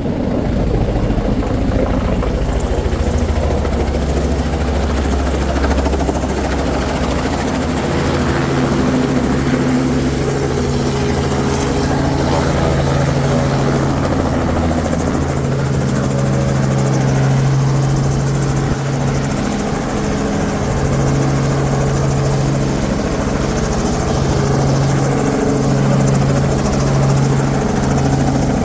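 Tour helicopter running close by, a loud, steady low rotor and engine drone.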